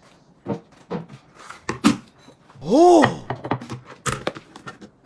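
A ceramic plate and dishes knocking on a table in several short separate knocks as the plate is set down. About halfway there is a drawn-out woman's "oh" that rises and then falls in pitch.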